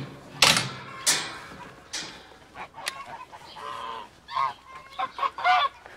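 Geese honking repeatedly: a few harsh, noisy honks in the first two seconds, then a run of shorter honks whose pitch rises and falls in the second half.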